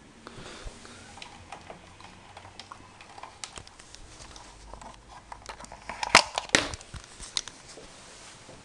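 Small clicks, taps and rubbing from hands working inside an unplugged VHS recorder, wiping the heads with an alcohol-dampened cotton swab, with a cluster of sharper clicks about six seconds in.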